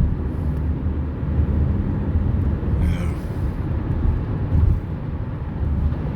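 Steady low rumble with no clear pitch, rising and falling a little in loudness.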